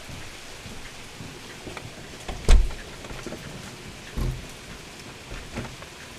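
Rain falling steadily, with a loud thump about two and a half seconds in and a smaller one just after four seconds.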